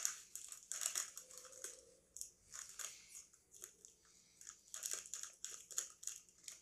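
Crinkling of a foil snack bag of Cheetos Crunchy Buffalo as a hand rummages inside it, a run of irregular crackles.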